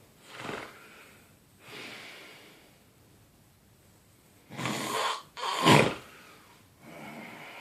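Snoring: slow, noisy breaths about every second and a half, with two much louder breaths back to back about five seconds in, the second the loudest.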